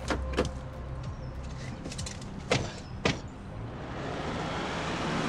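Four sharp knocks over a low steady hum, then a rush of noise that swells toward the end.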